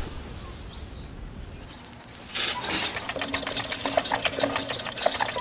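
A quiet stretch, then about two seconds in a rapid, irregular run of clicks and ticks starts over a faint steady hum.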